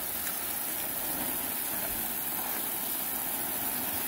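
Water gushing from a hose and splashing onto black plastic mulch: a steady splashing hiss.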